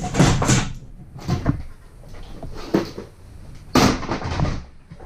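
A series of sharp knocks and clunks from tools and materials being handled and set down while rummaging for a roll of tape; the loudest knock is a little under four seconds in.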